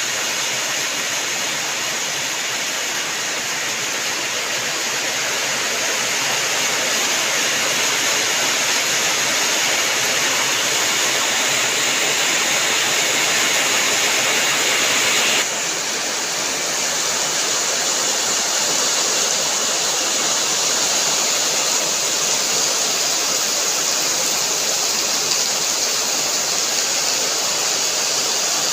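Heavy rain falling as a steady, dense rushing hiss. About halfway through it changes abruptly to a slightly quieter, duller hiss.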